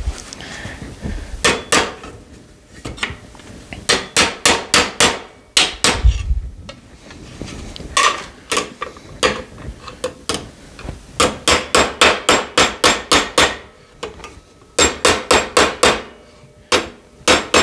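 Body hammer striking a steel stake pocket laid over a metal stand, straightening its edge. The strikes are sharp metal taps in quick runs of about five a second, with short pauses between the runs.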